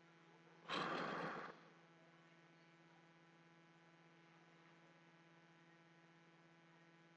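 Steady electrical mains hum, with one short rush of noise a little under a second long about a second in.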